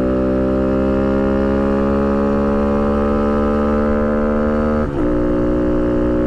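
Honda Monkey 125's single-cylinder four-stroke engine pulling hard under acceleration, its revs climbing steadily. About five seconds in the note breaks briefly for an upshift through the newly fitted six-disc clutch, then carries on at slightly lower revs.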